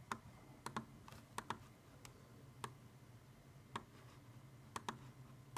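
Faint, irregular clicks at a computer, mouse or key presses, about ten in all, some in quick pairs, over a low steady hum.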